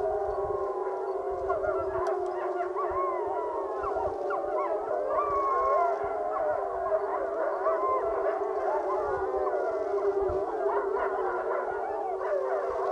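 A pack of gray wolves howling together in chorus. Many voices overlap: one low howl is held steady throughout, while others slide quickly up and down in pitch over it.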